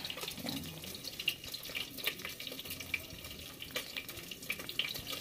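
Milkfish frying in hot oil: a steady sizzle with scattered small pops and crackles.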